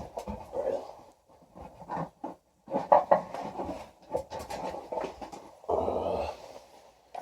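Handling noise: scattered knocks, clicks and rustles as tools are fetched and moved about, with a louder stretch of rubbing and shuffling about six seconds in.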